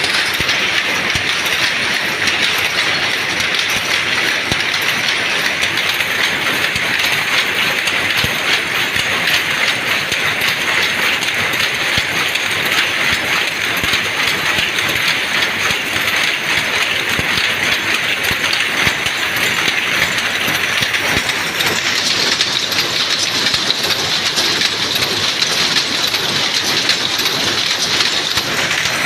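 Dobby power loom weaving terry towel: a loud, fast, continuous mechanical clatter of rapid repeating strokes, its tone shifting slightly about twenty seconds in.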